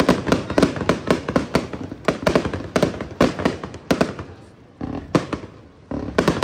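Aerial fireworks going off in a rapid run of bangs and crackles, thinning out after about four seconds, then a few more reports and a fresh run near the end.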